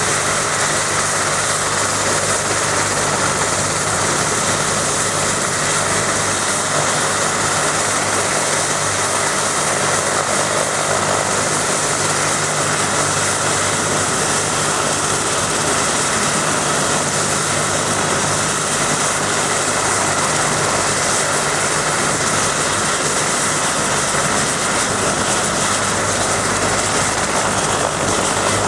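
BK 117 rescue helicopter standing on the ground with its twin turbine engines and main rotor running, a steady loud whine and rotor hum that holds the same pitch throughout, before lift-off.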